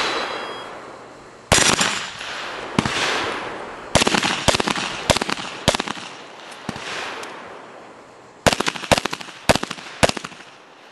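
Handgun shots in a practical pistol drill, each with a short echo trailing off. A single shot about a second and a half in and another near three seconds are followed by a quick string of about six shots, then a second quick string of about seven shots near the end.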